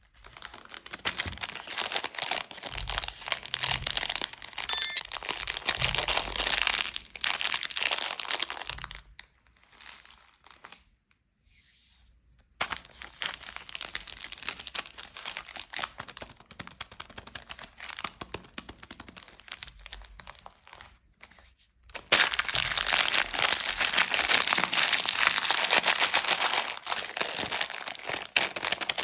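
Plastic and foil candy wrappers crinkling and tearing as sweets are unwrapped, close to the microphone, in three long stretches with a quiet pause of a few seconds about a third of the way through.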